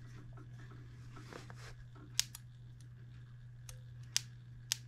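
Ignition spark snapping at a grounded test plug on an Enjomor 6cc hit-and-miss model engine, as the trigger is tripped by hand: three sharp ticks, one about two seconds in and two near the end, over a steady low hum. The spark comes only when the trigger is tripped manually, not from turning the engine over.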